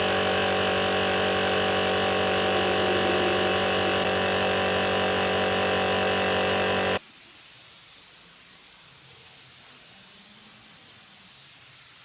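A power tool's electric motor runs steadily, then cuts off suddenly about seven seconds in, leaving a much quieter hiss.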